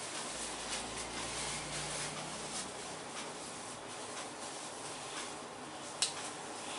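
Hands massaging the head, fingers rubbing through hair and over the scalp in soft, irregular strokes, with one sharp click about six seconds in.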